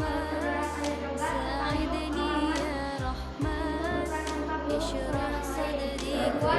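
Music with a woman's singing voice carrying a wavering melody over sustained bass notes and light percussion.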